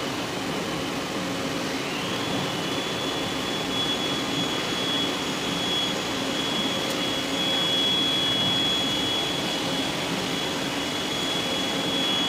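Steady machinery noise with a faint hum. About two seconds in, a high motor whine rises and then holds steady.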